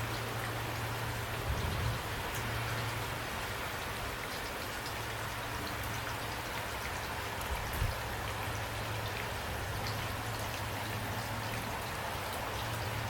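Steady rainfall, an even hiss with scattered drops ticking, over a constant low hum. A couple of brief low thumps come about two seconds in and again near eight seconds.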